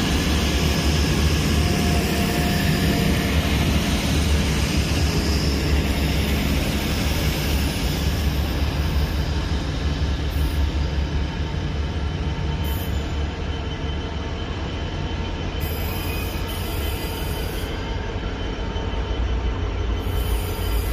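Diesel trains running through a station: a Grand Central diesel unit pulls away, then a GB Railfreight class 66 diesel-electric locomotive approaches slowly with its engine running. The rumble eases midway and builds again as the locomotive draws near.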